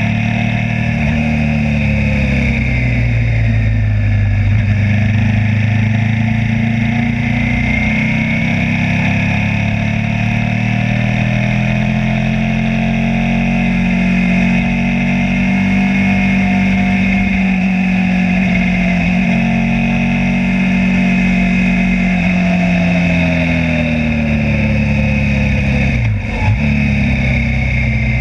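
Suzuki SV V-twin motorcycle engine heard from onboard, its pitch slowly falling and rising with the throttle through a series of bends. There is a brief break in the engine note near the end.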